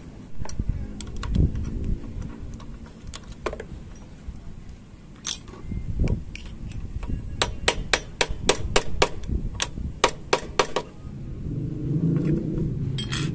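Metal-on-metal tapping as a motorcycle drum brake's rusted, sticking brake cam shaft is knocked out with a metal rod: a few scattered knocks, then a quick run of about a dozen sharp taps, roughly four a second, past the middle. A low rumble comes in near the end.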